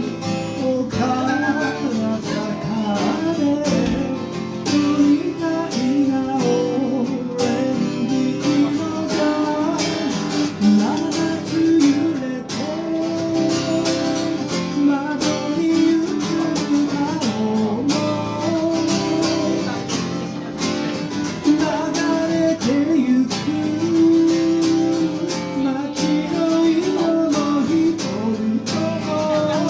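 Live acoustic guitar strummed as accompaniment, with a man singing over it.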